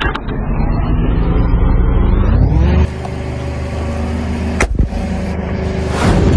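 Car engine running, rising in pitch about two and a half seconds in and then holding steady, with one sharp crack a little past the middle.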